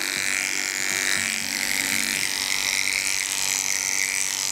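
Cordless dog grooming clipper with a snap-on comb running steadily, buzzing as it cuts through a poodle's curly coat along the jawline.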